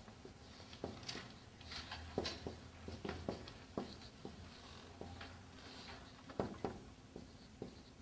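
Dry-erase marker writing on a whiteboard: faint, irregular squeaks and taps of the marker tip on the board, over a steady low hum.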